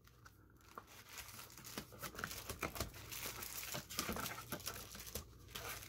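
Plastic trading-card pack wrapper crinkling and crackling as hands handle it and pull it open. The irregular crackles start about a second in and get busier after that.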